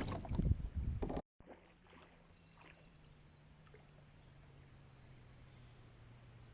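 About a second of loud water and handling noise around the kayak, ended abruptly by a cut. Then a faint, steady low engine hum that slowly drops in pitch.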